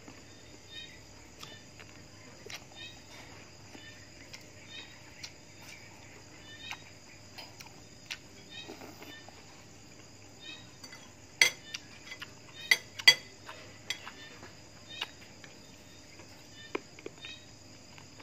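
A person eating close to the microphone: soft chewing and mouth clicks, with a few sharp clinks of metal cutlery against china dishes about 11 to 13 seconds in, the loudest sounds. Crickets chirp steadily behind.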